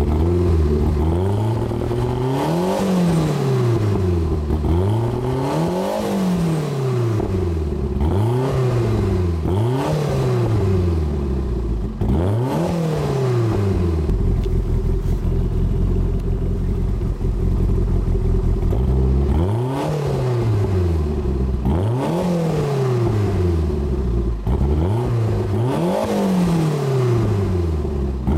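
Toyota MR2 Turbo's 3S-GTE turbocharged four-cylinder engine through a Berk exhaust with no silencers and the cutout closed, revved up and let fall back again and again, with a few seconds of steady idle around the middle.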